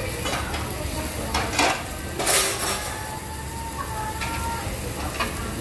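Plates and metal utensils clinking and clattering a few times over a steady hiss of meat sizzling on a tabletop barbecue grill.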